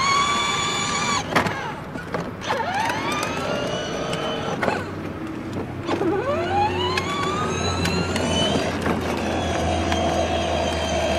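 Electric drive motors and gearboxes of a Power Wheels Batmobile ride-on car whining under way. The pitch rises as the car speeds up, then falls and winds up again a few times as it slows and pulls away.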